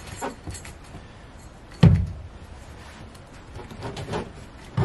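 Hands working the drive belt and water-pump pulley off a Yanmar 2GM20F marine diesel engine that is not running: soft rubbing and small clicks, with one loud knock about two seconds in and a few lighter knocks near the end.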